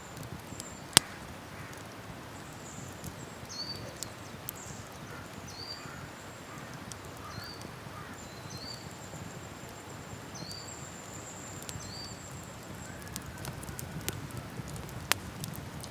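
Wood campfire crackling, with a sharp pop about a second in and another near the end, over a steady rush of river water. Short high chirps repeat about once a second, typical of a small bird calling.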